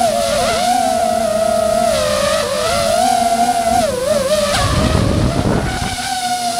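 DJI FPV drone's motors and propellers whining, the pitch wavering up and down with throttle changes. A little after four and a half seconds the whine drops away under about a second of rushing wind noise, then settles back to a steady whine.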